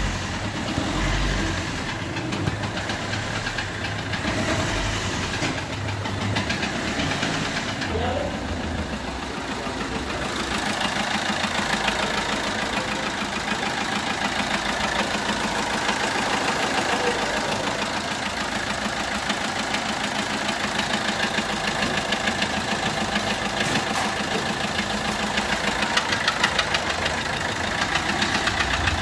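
Peugeot 1.3 HDi four-cylinder diesel engine running steadily, losing compression on the fourth cylinder through a bent valve that no longer closes fully. The sound is somewhat like an injector losing compression.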